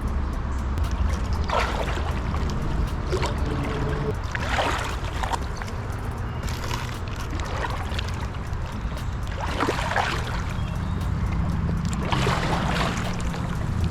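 Water sloshing around the legs of a person wading through a creek, a short swish every two to three seconds, over a steady low rumble.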